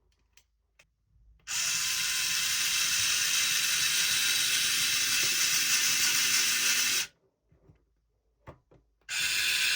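Electric screwdriver driving a 16 mm screw into a 3D-printed plastic part. A steady motor whine runs for about five seconds and stops. After a pause with a few faint clicks, it starts again about nine seconds in.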